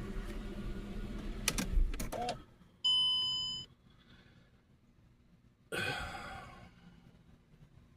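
Mercedes engine running with a few clicks, then shutting off about two and a half seconds in, followed by a single electronic warning chime. Near the end comes a short hiss, a sudden "psh" that fades over about a second: the intermittent hiss from the left side of the engine, which the owner puts down to water hitting the hot engine, a vacuum leak, or the brakes.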